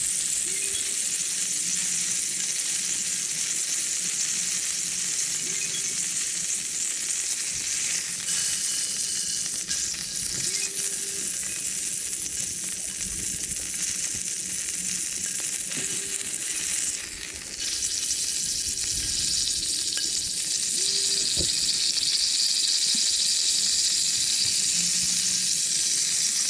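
A5 Wagyu steak sizzling in a hot cast-iron skillet on a Coleman camp stove, a steady frying hiss that dips briefly about two-thirds of the way through.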